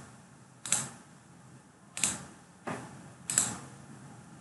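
Computer mouse clicks picked up by the microphone: four sharp single clicks at uneven gaps of about a second.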